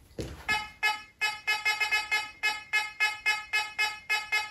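Fisher F44 metal detector giving a repeated beep, about four a second, as a Weimar pfennig coin passes over its search coil. The tone marks a target ID in the thirties.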